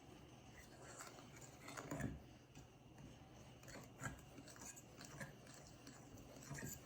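Faint scraping and rubbing of a fork stirring dry brown sugar and flour in a bowl, with a few soft knocks against the bowl.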